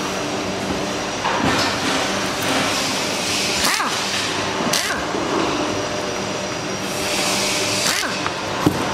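Screwdriver turning out the screws of a power sander's plastic handle housing, making scraping, grinding sounds from about a second in, over a steady background hum.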